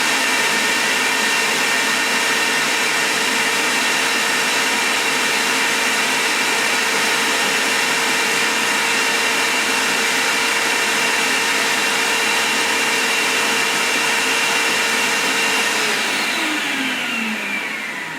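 Vax HF1400 carpet washer's vacuum motor running steadily with a high whine, its suction blocked by the priming plate while it draws shampoo solution through to the nozzle. About 16 seconds in it is switched off and winds down with a falling pitch.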